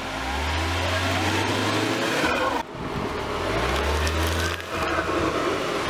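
Mitsubishi Pajero Mini's small engine revving in two surges with a short drop between, its pitch rising each time, as the stuck 4x4 tries to drive out of the bog mud with its wheels spinning.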